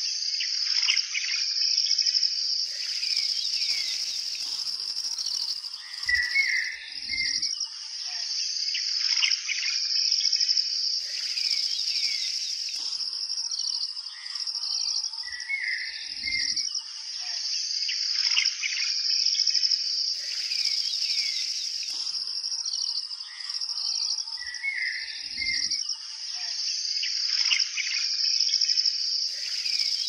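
Nature soundscape of insects trilling steadily at a high pitch, with birds chirping and calling over them. The same stretch of calls comes round again about every nine seconds, as a loop.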